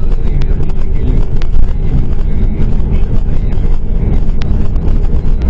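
Loud, steady low rumble of a moving vehicle mixed with wind noise on the microphone, with a few faint clicks.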